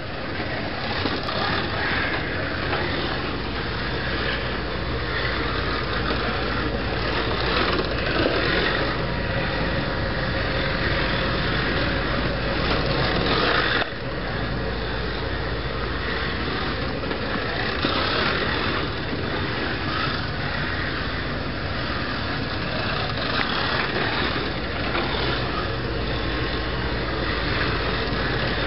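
Vintage COX-chassis 1:24 scale slot car running on a track: its small electric motor and gears make a steady whirring run, with a brief break about fourteen seconds in.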